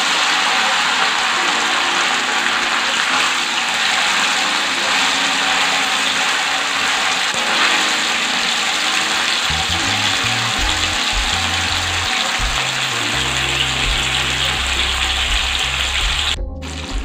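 Marinated anchovies deep-frying in hot oil: a loud, steady sizzle. The sizzling is still strong, the sign that the fish is not yet done; it should be lifted out only once the sizzling dies down.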